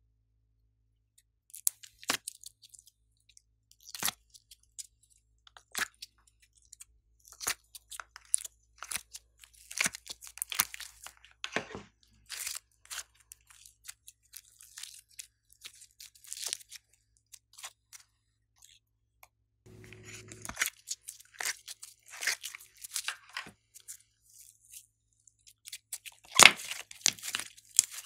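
Slime being squeezed, kneaded and stretched by hand, making irregular wet crackles and pops in clusters, loudest near the end.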